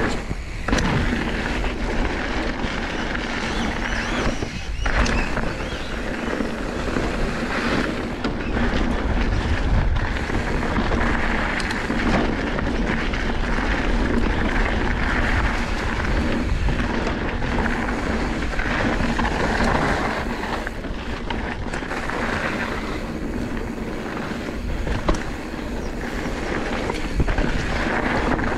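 Mountain bike rolling along a dirt singletrack: steady tyre noise on dirt and gravel, with occasional knocks as the bike goes over bumps. Wind buffets the microphone.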